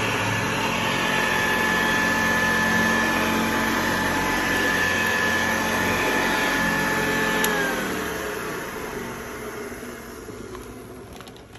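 Vintage Hoover upright vacuum cleaner running steadily with a high motor whine, then switched off with a click about seven and a half seconds in, the motor winding down with a falling pitch and fading.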